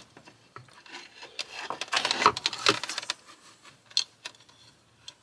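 Stiff insulated wire leads rubbing and clicking as hands bend and handle them against the surge protector's plastic housing. It is busiest about two seconds in, with a sharper tick near the end.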